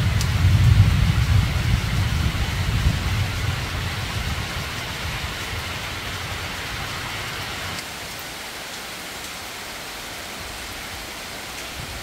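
Steady rain falling on dense tropical foliage, an even hiss. A deep rumble is loud in the first few seconds and fades away.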